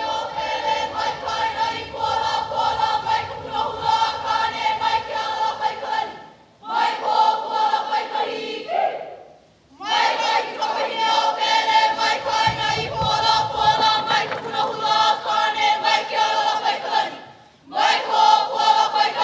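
A large group of voices chanting together in unison in Hawaiian, in long sustained phrases separated by short breaks.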